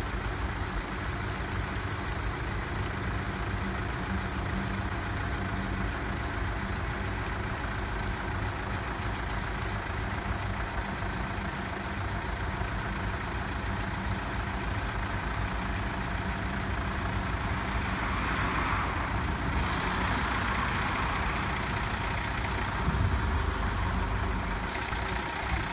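Isuzu road sweeper truck's engine running steadily while its dustbin is hydraulically tilted up for dumping. A louder rushing hiss comes in about two thirds of the way through, and there is a brief thump near the end.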